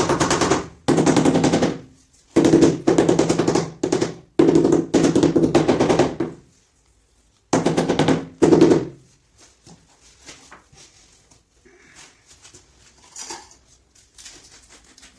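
Hammer drill running in repeated bursts of one to two seconds with short pauses, a rapid machine-gun-like hammering over a steady motor hum. It stops about nine seconds in, followed by faint small knocks and scrapes.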